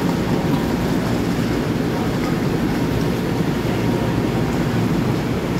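Steady low rumble and hum of a Long Island Rail Road M9 electric train standing at the platform with its doors open.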